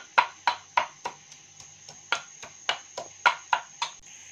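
Stone pestle (nora) pounding whole spices in a steady run of sharp knocks, about three a second, stopping near the end.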